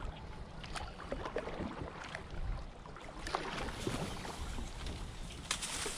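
Dry marsh reed stalks brushing and crackling against the hull of a canoe as it pushes into them, an irregular run of small rustles and snaps, sharper about halfway and again near the end.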